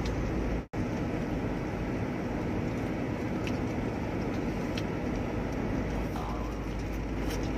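Steady road and engine rumble inside a moving car's cabin. It cuts out for an instant a little under a second in.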